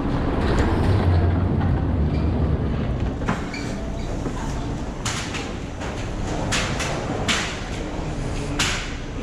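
Airport escalator running with a steady low rumble while rolling suitcases ride it, with several sharp clacks and rattles in the second half.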